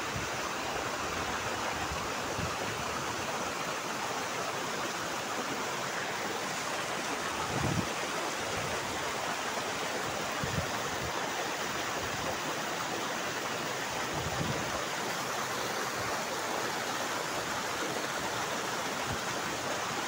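Tall waterfall plunging down a cliff into a rocky pool: a steady, even rush of falling water.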